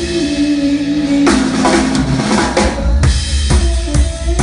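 Live rock band playing without vocals: a drum kit's bass drum and snare beat under held notes from a Telecaster-style electric guitar.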